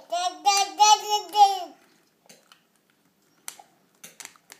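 A young child's high-pitched babbling: a short run of about five wordless syllables at a fairly steady pitch, then a few faint light clicks near the end.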